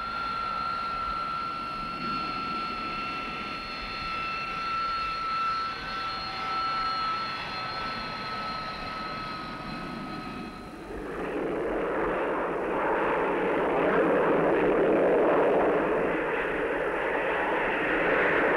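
Hawker Siddeley Harrier's Pegasus turbofan whining on the ground, a steady high-pitched tone. About eleven seconds in it gives way to a louder, steady rushing jet roar.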